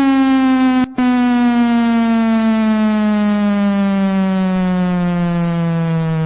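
Federal Signal 2001 electromechanical warning siren winding down, its tone falling steadily in pitch. The sound cuts out for a moment about a second in.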